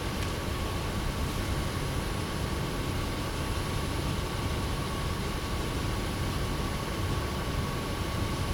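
Steady background rumble and hiss with a faint steady high tone running through it; no distinct events.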